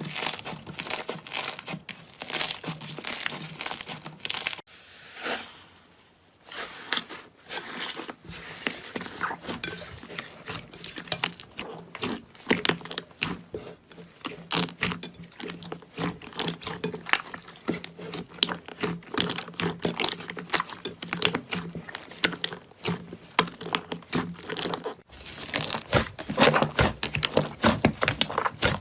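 Slime being squeezed, pressed and stretched by hand, giving a dense run of crackling and popping clicks. The sound dips briefly about five seconds in and changes abruptly near the end.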